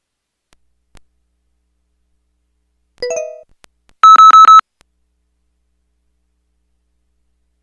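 Samsung SPH-A840 (Vivo) phone's electronic alert tones: a short two-note chirp about three seconds in, then a loud burst of about five rapid high beeps a second later. A faint click comes about a second in.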